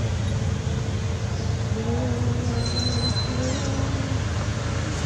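A steady low rumble, with a faint distant voice from about two seconds in and a short high whistle near the middle.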